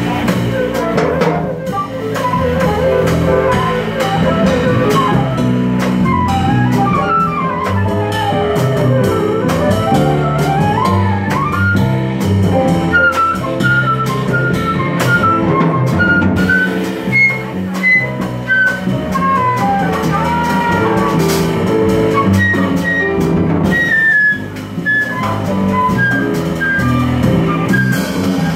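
Live jazz: a flute solo of quick melodic runs over double bass and drum kit with cymbals. Near the middle the flute sweeps down and back up in a fast run.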